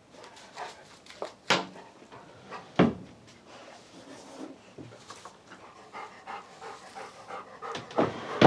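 A dog panting, with a few sharp knocks about one and a half, three and eight seconds in.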